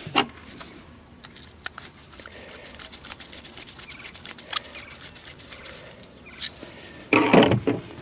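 Light clicks and taps of small metal carburetor parts being handled and fitted into the carburetor body by hand, with a louder handling noise about seven seconds in.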